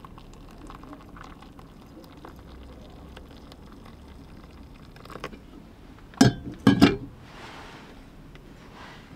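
Hot water poured quietly from a small camping kettle onto oats in a steel bowl. About six seconds in, the kettle is set down on the metal pot supports of a small gas stove with a few loud clanks, then a spoon stirs the wet oats.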